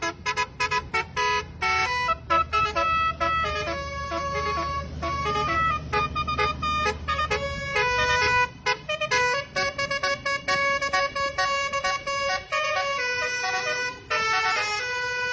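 Bus telolet horn, a Basuri 'Bazooka'-type multi-tone horn, playing a pop-song melody as a quick run of short toots and longer held notes. A low engine rumble sits under the first half.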